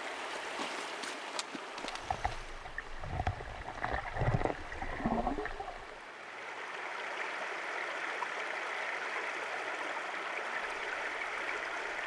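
A few knocks and low thumps, then from about halfway a steady rushing like running water.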